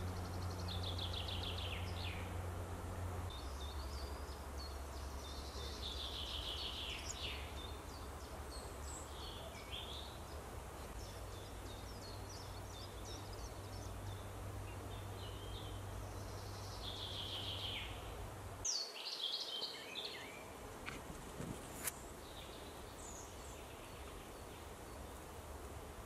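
Spring woodland songbird chorus: several birds singing short trilled phrases at intervals, one falling in pitch near the start. A low steady hum runs underneath and stops abruptly about nineteen seconds in, and there is a single click near the end.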